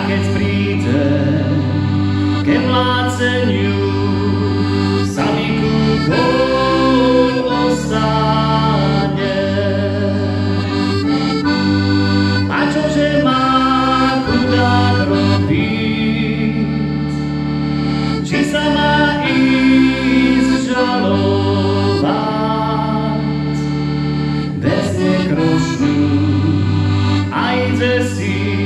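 Red piano accordion playing a Slovak folk tune: a right-hand melody over a steady left-hand bass-and-chord accompaniment whose low notes change every couple of seconds.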